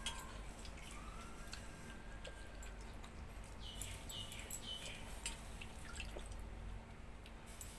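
A hand squeezing and stirring water-soaked rice (pakhala) in a steel bowl: small wet drips and splashes, with scattered soft clicks.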